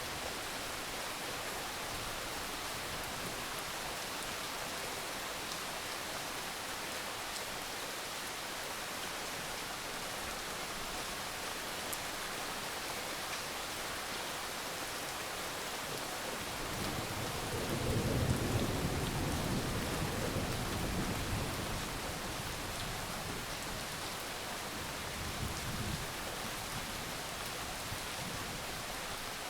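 Steady rain falling. A low rumble of thunder swells about halfway through and dies away over several seconds, and a softer rumble comes near the end.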